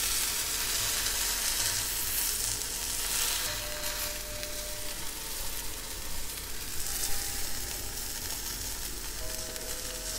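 Beef steak searing in a hot frying pan, a steady sizzle.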